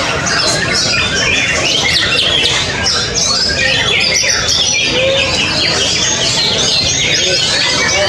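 Caged white-rumped shamas (murai batu) singing at the same time: a dense, overlapping jumble of rapid high whistles and trills.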